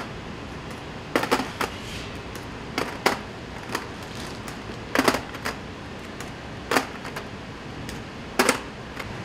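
Irregular light clinks of aluminium pudding moulds knocking together as frozen pudding discs are set into them by hand, over a steady background hiss. The clicks come singly and in short clusters, about a dozen in all.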